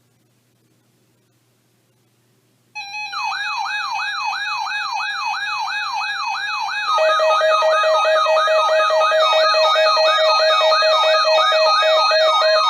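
Electronic siren-like alarm that starts suddenly about three seconds in: a rapidly repeating falling wail, about three sweeps a second, over steady tones. A louder steady tone joins about halfway through.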